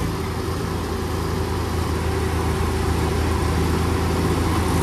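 Two farm tractors' diesel engines, the nearer a Mahindra 265 DI, running steadily under load as one tows the other out of deep mud.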